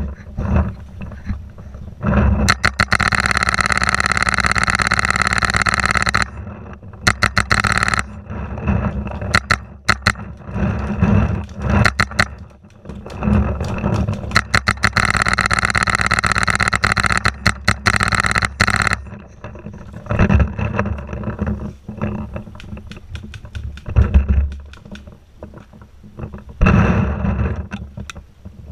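Dry brush, twigs and leaves scraping and rustling against the barrel-mounted camera and marker as the player pushes through scrub, with footsteps on dry dirt and leaf litter. It comes in long loud stretches of scraping with many sharp crackles, about two seconds in, again midway, and briefly near the end.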